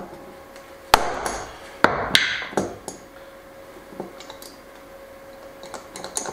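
Hammer striking a hammer-type crimping tool to crimp a ring terminal onto a heavy battery cable: two sharp blows about a second apart, followed by a few lighter knocks.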